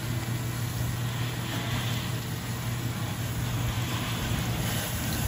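Garden hose spray nozzle jetting water into the drum of a stainless steel poultry plucker, a steady hiss of spray over a steady low hum.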